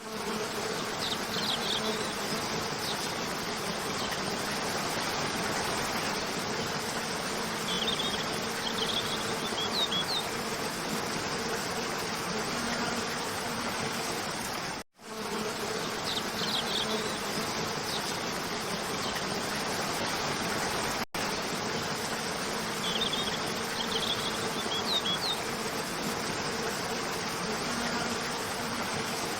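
Waterfall: a steady rush of falling water, with a few faint high chirps now and then. The sound cuts out briefly about halfway through and again a little later.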